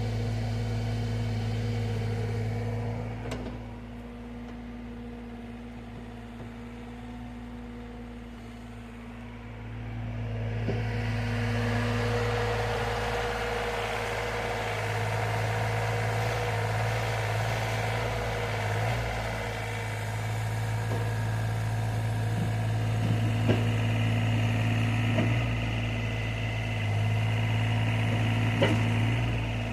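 Engine running steadily throughout. It drops to a quieter level for several seconds, then comes back louder and fuller about a third of the way in. There are a few short knocks along the way.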